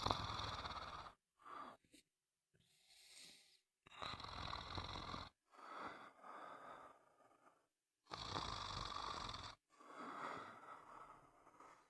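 A person snoring in a steady rhythm of rough, noisy breaths, each lasting one to two seconds, with short gaps of complete silence between them.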